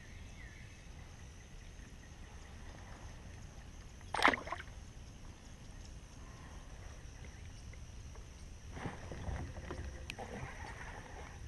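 A short, loud splash about four seconds in, as the caught bass goes back into the lake beside the kayak. Later come light knocks and rustles from handling the rod and reel, with one sharp click near the end.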